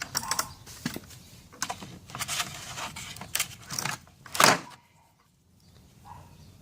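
Handling noise from chrome-moly impact sockets and their case: a series of clicks, knocks and clinks, the loudest knock about four and a half seconds in, then quieter.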